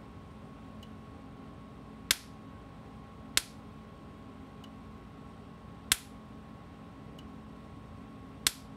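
Gallagher M600 electric fence energizer pulsing about every 1.3 seconds, its output arcing from the fence terminal to a wire held just off it from the ground terminal: four sharp spark snaps, with fainter ticks on the pulses between. The snaps show the strength of the unit's 6-stored-joule pulse.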